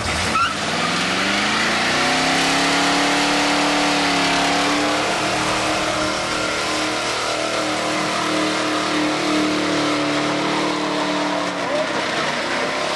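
The V8 of a 1985 Ford F-150 revs up over the first couple of seconds and is held at high rpm during a burnout, over a steady hiss of spinning tyres. Near the end the revs dip briefly, then climb again.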